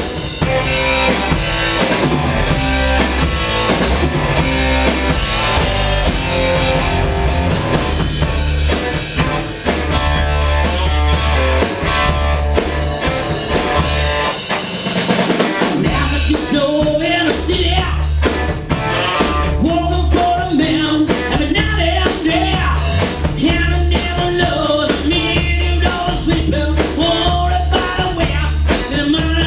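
Rock band playing an instrumental passage: drum kit, a pulsing bass line and guitar. A wavering lead melody comes in about halfway through.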